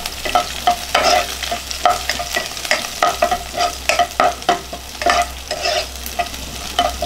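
Sliced onion and whole spices sizzling in hot ghee in a nonstick pot, stirred with a spatula: quick, irregular scraping strokes of the spatula against the pan over a steady sizzle.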